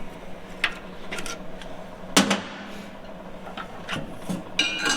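Scattered metal clanks and taps from hand tools and metal parts being handled on a workbench, with one louder clank about two seconds in and a short metallic ring near the end, over a faint steady hum.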